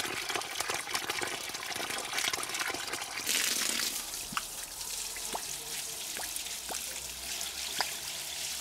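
Water running from an open garden hose and splashing onto thuja shrubs: a steady hiss that gets louder for a moment about three seconds in, then softer with scattered drips and patters.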